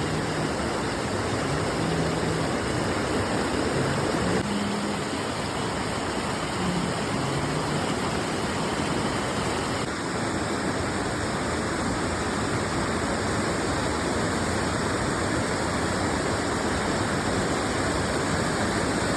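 River water rushing in a steady, even flow.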